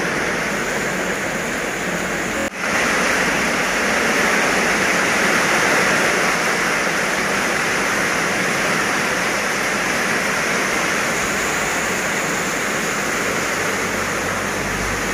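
Rain falling steadily, an even hiss with a brief break about two and a half seconds in.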